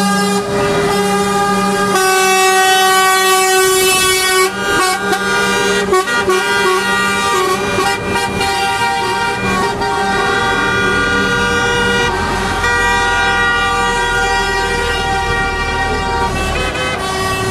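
Truck air horns honking in long, held blasts that change pitch every few seconds as a convoy of trucks drives past, over the low rumble of their diesel engines, which grows stronger about two thirds of the way through.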